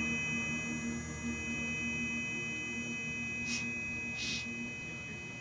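A sustained electronic drone from the score, with a low tone and several thin steady high tones, slowly fading. Two short soft hisses come near the end.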